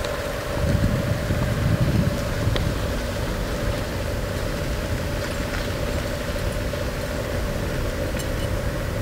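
Car driving along a road, heard from inside the cabin: a steady engine and road-noise hum with a constant whine, the low rumble growing stronger for about a second near the start.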